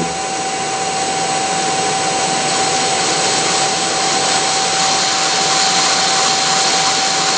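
Belt grinder's electric motor running on a frequency inverter as the frequency is turned up, a steady machine whir that grows slightly louder over the first few seconds. Two steady tones sit over the whir, a mid whine and a high thin whistle. The owner hears the whistle as a fault he cannot explain.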